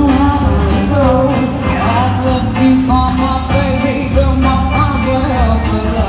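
Live band playing a song: a singing voice over keyboard and a steady beat.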